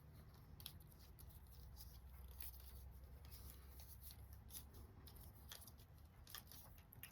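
Near silence, with a low steady hum and faint scattered clicks of small plastic fidget toys being handled and bent.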